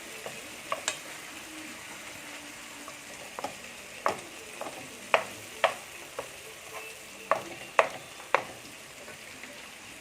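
Mixed vegetables frying in a hot pan with a steady faint sizzle, while a spatula scrapes them to one side and clacks against the pan a dozen or so times at uneven intervals.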